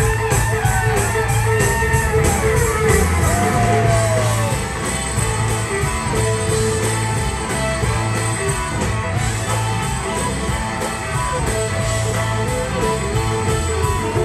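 Live blues-rock band playing an instrumental: an electric guitar leads with bent notes in the first few seconds, with a fiddle over bass and drums.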